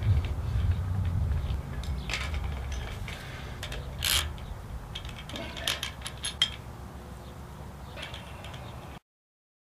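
Small metallic clinks and ticks of a U-bolt and nut against a steel well casing as the nut is started on the bolt by hand. A few sharp ticks come about two and four seconds in and a quick cluster around six seconds, over a low rumble, and the sound cuts off near the end.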